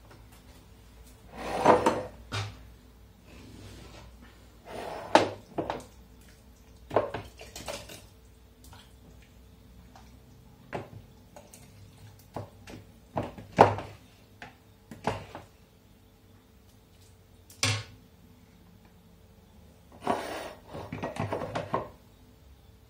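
Kitchen utensils clinking and scraping: a metal ladle scraping and knocking in a cooking pot and a plastic funnel and glass jars knocking together as hot vegetables are spooned into the jars. Irregular clinks, knocks and short scrapes, a few of them sharp and loud.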